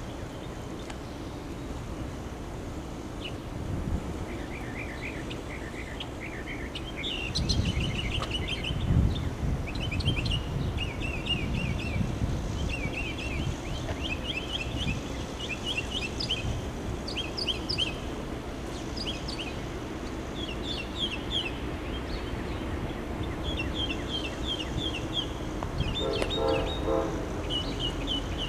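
Songbirds chirping in quick runs of short, high notes, over a low rumble of wind on the microphone that swells in gusts in the first half.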